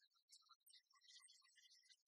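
Near silence, with only faint scattered high-pitched specks of noise.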